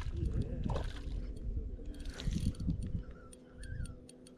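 Fishing reel clicking as a hooked trout is played in, with low rumble of handling noise; the ticks start about halfway through and come faster toward the end.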